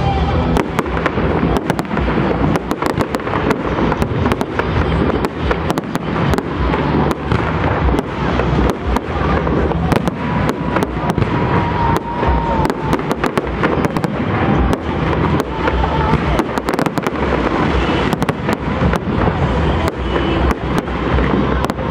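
Aerial fireworks display in a dense, continuous barrage: many sharp cracks and bangs a second from bursting shells over a low, steady rumble.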